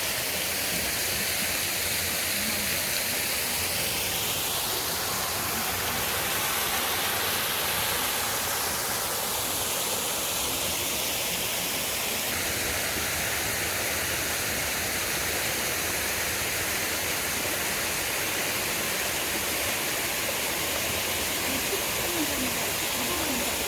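Steady rush of flowing water, as from a small waterfall or stream. In the middle a fainter sound sweeps up in pitch and back down, and faint voices come in near the end.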